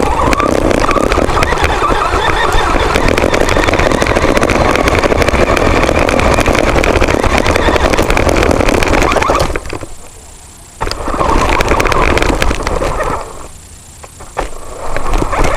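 Small remote-controlled ground vehicle driving under power in three runs, one of about ten seconds, then a shorter run, then a brief one near the end, its motor and tyres making a loud rough rushing noise.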